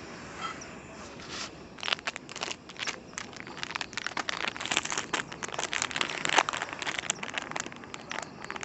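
Plastic sachet being handled, crinkled and torn open by hand: a dense run of quick crackles starting about two seconds in.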